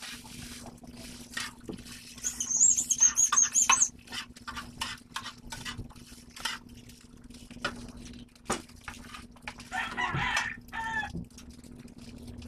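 Metal spatula clicking and scraping in a frying pan while egg and rice are stir-fried, with chickens clucking nearby. About two seconds in, a high warbling bird call runs for nearly two seconds, the loudest sound here, and a short chicken call comes near the end.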